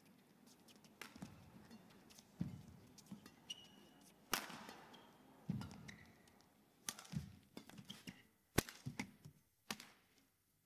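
Badminton rally: sharp cracks of rackets striking the shuttlecock every second or two, coming quicker together near the end, mixed with dull thuds of footwork and short squeaks of shoes on the court mat. The hits stop shortly before the end as the rally finishes.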